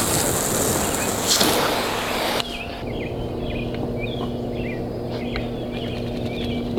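Garden hose spraying water, a loud hiss with a few splashy clicks, cuts off suddenly about two and a half seconds in. Birds then chirp repeatedly over a steady low hum.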